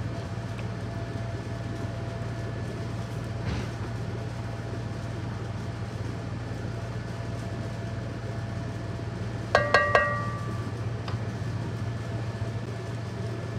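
Steady low mechanical hum of a kitchen appliance running. About ten seconds in come three quick ringing clinks close together, a utensil knocking against cookware.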